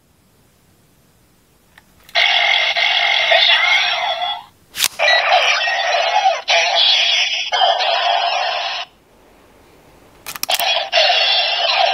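Bootleg CSM Gatack Zecter transformation-belt toy playing its electronic sound effects and voice calls through its small built-in speaker, thin with no bass. The sound starts about two seconds in and comes in three bursts, with sharp clicks between them.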